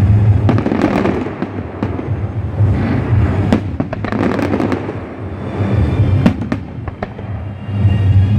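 Aerial fireworks shells bursting repeatedly, a dense series of loud bangs and sharp cracks.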